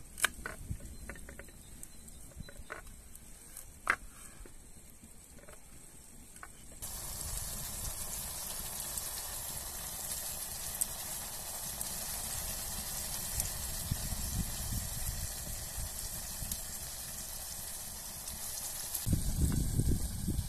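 Knife cutting a potato on a wooden board, with a few sharp clicks and knocks. About seven seconds in, a steady sizzling starts: meat, red onion and green chillies frying in an enamel pot over a wood fire. Near the end, a wooden spoon stirs the pot.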